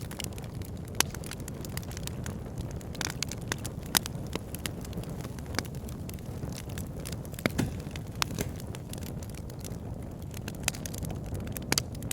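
Logs burning in a fireplace: a steady low rush of flames with irregular sharp pops and crackles from the wood, the loudest pops about one, four and seven and a half seconds in.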